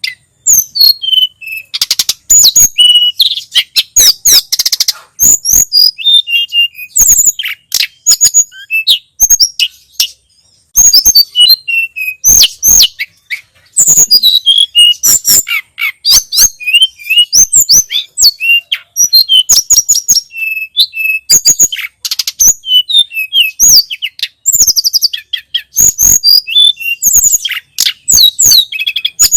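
Tledekan gunung songbird singing a fast, loud string of high chirps and short gliding whistles, almost without a break.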